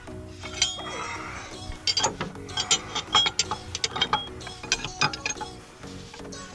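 Metal tool clicking and clinking sharply and irregularly as a fan clutch is tightened onto the water pump hub, over background music.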